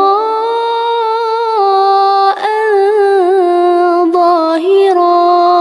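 Female Quran reciter chanting the drawn-out close of a verse ('illa mira'an zahira') in a long melodic line. She holds level notes with small wavering ornaments, with a brief break about two and a half seconds in.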